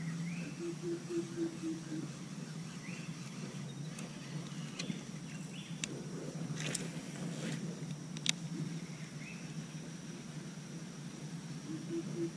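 Outdoor ambience of insects and birds: a steady high insect drone with a few short rising bird chirps, over a low steady hum. A handful of sharp clicks come around the middle.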